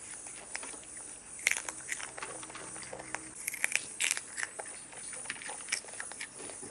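Someone biting and chewing crunchy food close to the microphone: a run of irregular crisp crunches and clicks.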